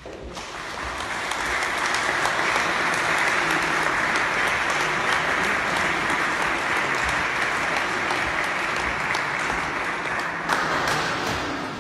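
Audience applauding: a dense patter of clapping that swells over the first couple of seconds, holds steady and full, and eases off near the end.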